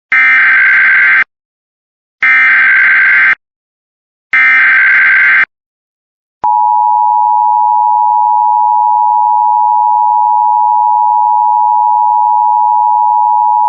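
Emergency Alert System broadcast opening: three identical SAME digital header bursts, each about a second long with a short gap between them, followed about six seconds in by the steady, loud two-tone EAS attention signal. This sequence announces an alert, here a Child Abduction Emergency (Amber Alert) activation.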